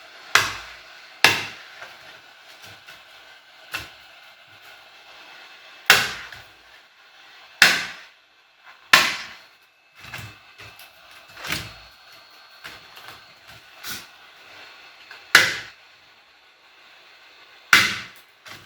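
Hard laptop parts clicking and knocking as they are handled during a repair: about a dozen sharp clicks at irregular intervals, each with a short ringing tail.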